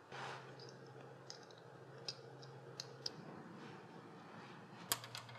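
Faint, scattered small metal clicks of spring washers and nuts being fitted onto the power steering pump's mounting studs, with a sharper click near the end.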